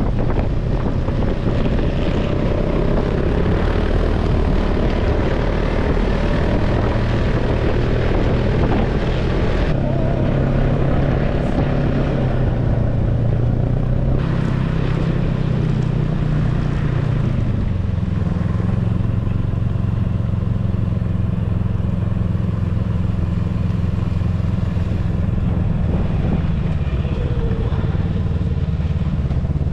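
Snowmobile engine running steadily as the sled rides along the trail. From about eighteen seconds in it settles to a steadier, lower drone as the sled slows and idles.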